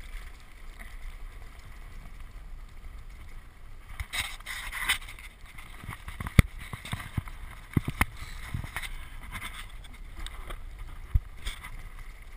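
Land sailer rolling across a dry lake bed: a steady low rumble from the wheels and the moving air, with a few sharp knocks from the craft. The loudest knock comes about six seconds in, and others come near eight and eleven seconds.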